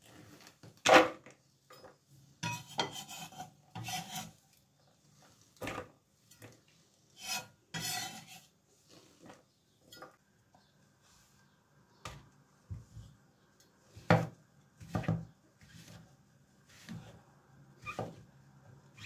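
Kitchen knife on a bamboo cutting board: irregular scraping and knocking in the first half as diced red bell pepper is scraped off the board, then spaced single knife strokes slicing brown mushrooms, each ending in a knock on the wood.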